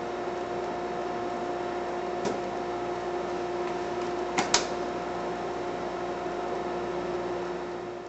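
Hot melt dispensing machine humming steadily, with a faint click about two seconds in and a sharp double click about four and a half seconds in.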